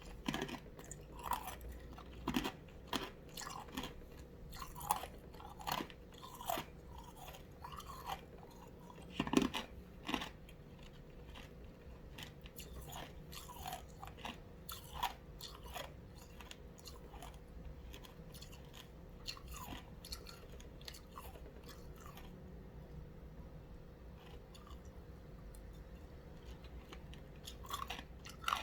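A person chewing and crunching ice cubes close to the microphone, with crisp crunches about once a second that thin out after the halfway point and pick up again near the end.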